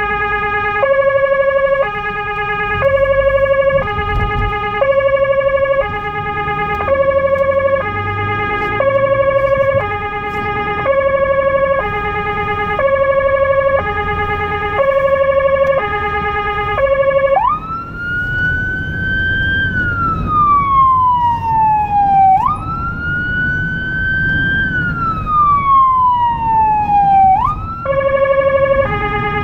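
An emergency car's electronic siren heard from inside the cabin. It first sounds a two-tone hi-lo, alternating about once a second. About two-thirds through it switches to a wail that rises quickly and falls slowly, about five seconds a cycle, then goes back to the two-tone near the end, with engine and road rumble underneath.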